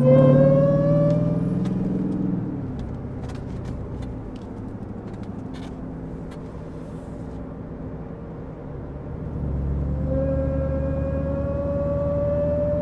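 Supercharged V8 of a 1,000 hp Dodge Charger accelerating hard, with a rising supercharger whine, then settling to a lower steady run. About ten seconds in it pulls again and the whine climbs slowly.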